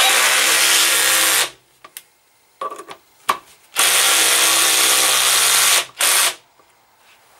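Cordless drill-driver with a hex bit running up cap head screws into an electric motor's mounting plate. It runs twice, for about a second and a half and then about two seconds, with a short final burst as a screw is snugged tight and a few light clicks in between.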